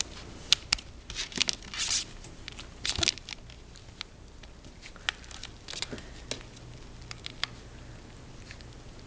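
Four-week-old Sheltie puppies scrambling and wrestling, their paws and claws making light, irregular taps, scratches and rustles, with a couple of brief rustling bursts in the first few seconds.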